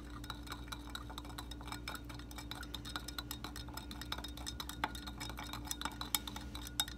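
A stirrer clicking and clinking rapidly and irregularly against the side of a container as citric acid is stirred into water, over a steady low hum.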